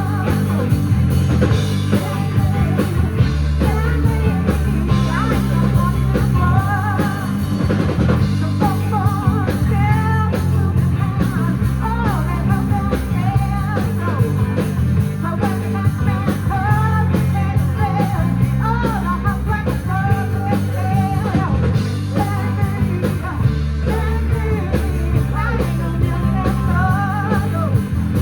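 Live rock band playing a song: drum kit, bass and electric guitars, with singing over them.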